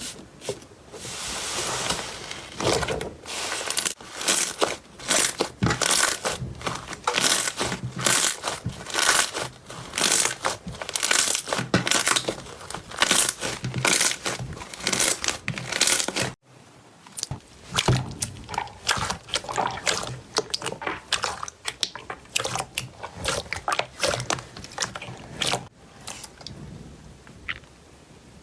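Slime being pressed and squeezed by hand, giving a dense run of quick crunchy crackles and pops. A sudden cut comes about two-thirds of the way through, and after it the crackles are sparser.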